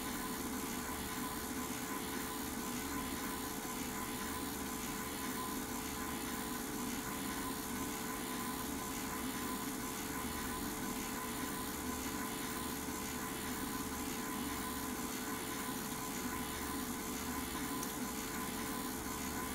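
Home-movie film projector running: a steady motor and fan hum with a constant whir and hiss.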